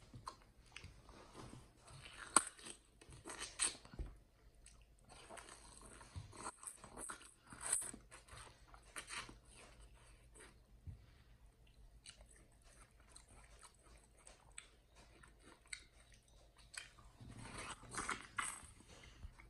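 A chimpanzee biting into and chewing a mini watermelon: irregular crunching bites and chewing, loudest at a few moments, around two to four seconds in, near eight seconds, and near the end.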